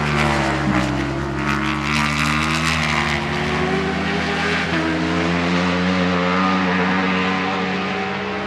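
Ducati Panigale V4 superbike V4 engines at racing speed on track, the engine note gliding in pitch with abrupt steps at gear changes about a second in and again near five seconds. A loud, steady engine sound with some crackle in the first few seconds.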